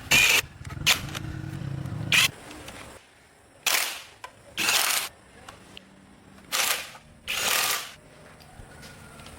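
Short hissing bursts, about six of them and mostly in pairs, over a low hum that stops about three seconds in.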